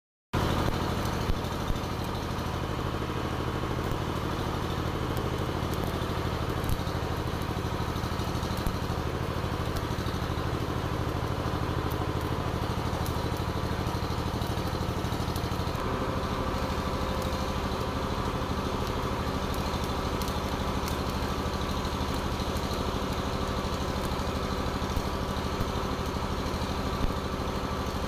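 An engine running steadily at a constant speed, its hum shifting slightly about halfway through, with the sputter and crackle of stick (arc) welding on the steel excavator bucket.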